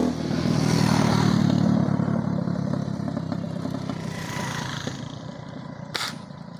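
A motor vehicle's engine picks up speed and pulls away. It is loudest in the first two seconds and fades steadily after. A sharp click comes about six seconds in.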